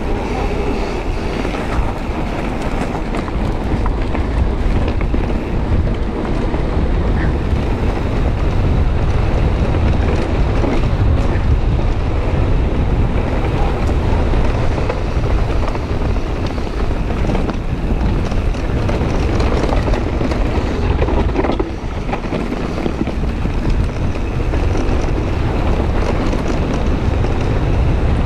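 Wind buffeting a handlebar-mounted action camera as a mountain bike rolls fast downhill, with tyre noise on dirt and rock and scattered clicks and rattles from the bike over rough ground.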